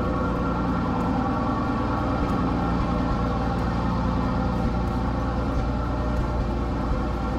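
The 1928 Lombard Model T tracked dump truck's Hercules YXC-2 six-cylinder engine idling steadily.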